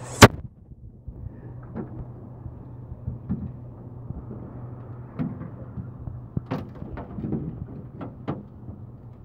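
A single sharp knock just after the start, then a steady low hum with scattered light knocks and clicks every second or so, the handling noise of heavy fishing gear on a boat while a big fish is fought.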